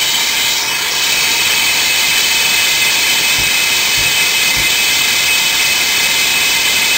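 Hilti diamond core drill on a rig stand running with its large core bit cutting into a masonry wall: a loud, steady, high-pitched hiss. Three faint low thumps about half a second apart come near the middle.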